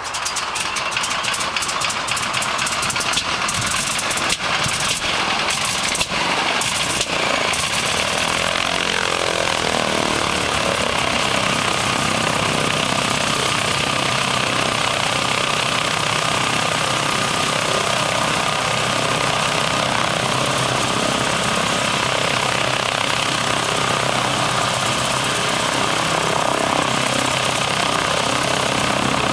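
Harvard Mk.4's Pratt & Whitney R-1340 Wasp nine-cylinder radial engine starting. It catches unevenly with a rapid string of pops for about the first seven seconds, then settles and runs steadily.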